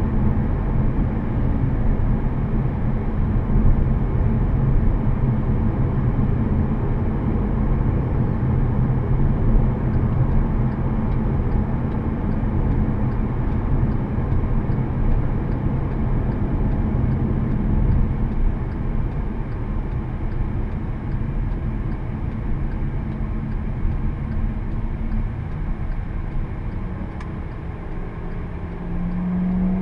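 Cabin noise inside a moving 2014 Volkswagen Passat 1.8T, with its turbocharged four-cylinder engine: a steady low engine hum over tyre and road noise. It grows quieter over the last few seconds as the car slows.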